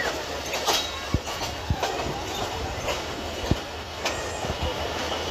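Passenger coach rolling slowly over the track on departure, its wheels knocking irregularly over rail joints under a steady rumble.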